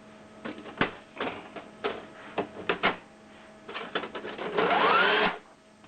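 Canon Pixma MG2470 inkjet printer's mechanism clicking and clattering, then a motor whirring for about a second with a tone rising in pitch, which stops suddenly near the end. The printer is working through a cancelled print job while its nozzle cleaning is still unfinished.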